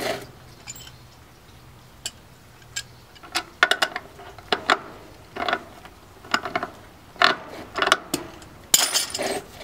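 A wrench clinking against a nut and washer on a wheel's axle bolt as the nut is turned, a series of irregular metallic clicks starting about three seconds in.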